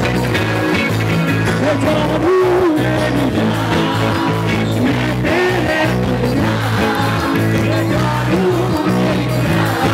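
A Hindi rock band playing loud live music, with a steady bass and drum beat; a singer's wavering vocal line comes in about a second and a half in.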